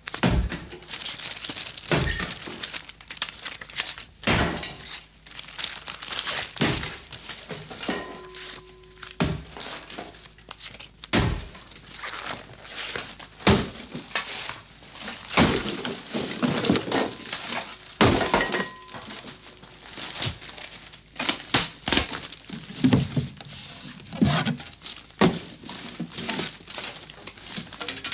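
Household belongings being deliberately smashed: irregular sharp cracks, knocks and breaking, with tearing and crumpling paper in between. About 8 s and 18 s in, a struck object briefly rings.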